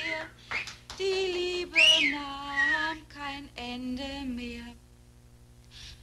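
A crowd of men whistling, hooting and calling out. The noise dies away to quiet a little under five seconds in.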